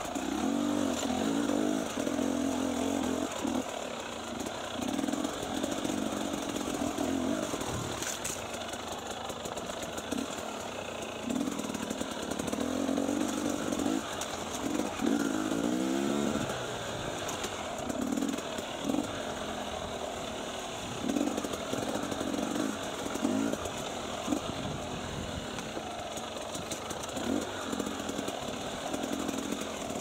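Enduro dirt bike engine revving in short throttle bursts, rising and falling in pitch, as the bike picks its way over rocks on a steep trail.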